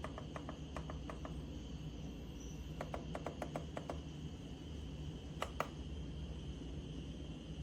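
Light sharp clicks in short quick runs, a handful near the start, a longer run about three seconds in and two more about five and a half seconds in, over a steady high-pitched tone and a low hum.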